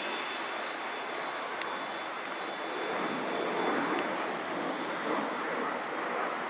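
Jet engines of a Boeing 747 running as it rolls along the runway: a steady rushing noise that swells about three seconds in, with a faint high whine in the first two seconds.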